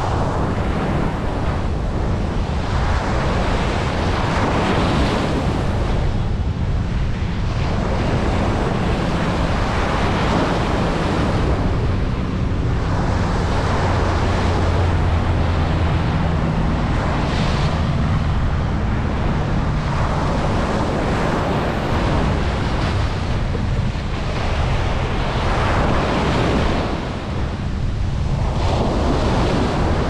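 Ocean surf breaking and washing up on a sandy beach. It is a continuous rush that swells and eases every few seconds as each wave comes in, over a steady low rumble.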